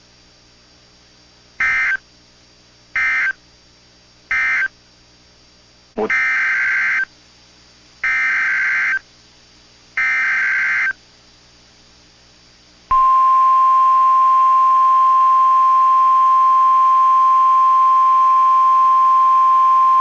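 NOAA Weather Radio emergency alert data tones (SAME): three short buzzy bursts, the end-of-message code closing the tornado watch, then three longer bursts, the header announcing the next alert, a tornado warning. About 13 seconds in, the steady single-pitch weather radio warning alarm tone starts and holds.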